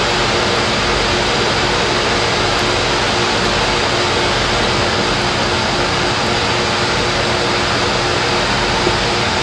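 Loud, steady rushing noise with a faint steady hum underneath, unchanging throughout.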